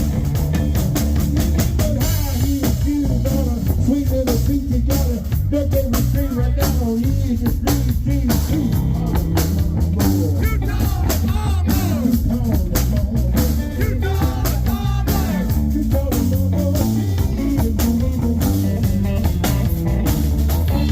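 Live blues-rock band playing: guitar with bending notes over bass and a drum kit.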